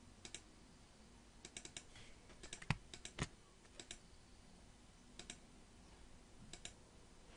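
Faint, scattered computer mouse clicks, some in quick pairs and short runs of three or four.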